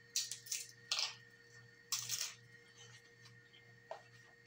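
Crisp air-fried taco shell crunching as it is bitten and chewed, several sharp crunches in the first two and a half seconds, then a small click near the end.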